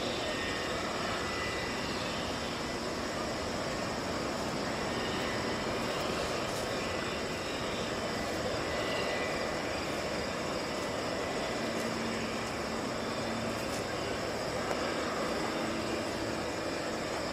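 Boeing 787-9 airliner's jet engines running steadily at a distance while the jet moves on the ground, an even rushing noise that neither builds nor fades. A faint low hum joins in about two-thirds of the way through.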